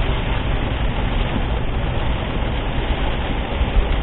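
Hail and torrential rain pelting a vehicle in a severe thunderstorm: a dense, steady noise over a low rumble, with one sharper hit near the end.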